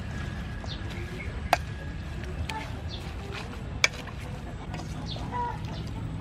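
Salad being tossed by hand in a stainless steel bowl, with two sharp knocks against the bowl. Short calls of fowl are heard in the background.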